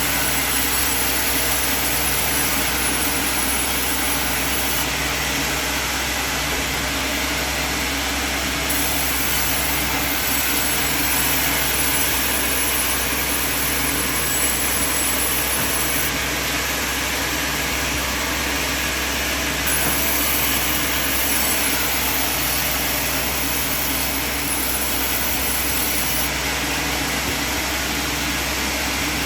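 Sawmill machine running steadily: a constant loud machine noise over a low motor hum, its tone shifting slightly every few seconds.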